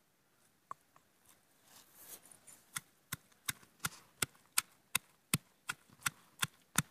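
Stone pestle pounding shallots, garlic and curry leaves in a stone mortar. A steady run of about a dozen strikes, about three a second, starts about three seconds in and grows louder.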